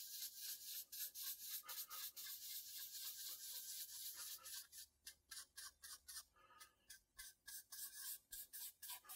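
Cotton t-shirt rag rubbed back and forth over a dye-wet quilted maple guitar top: a faint run of quick hissy wiping strokes, close together at first and then separate strokes about three a second from about halfway.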